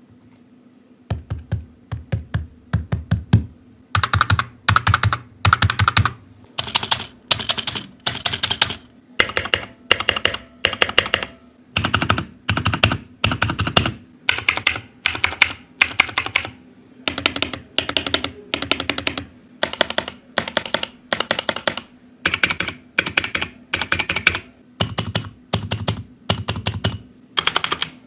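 Typing on a computer keyboard: quick bursts of rapid keystrokes, about one burst a second with short pauses between, over a faint steady hum.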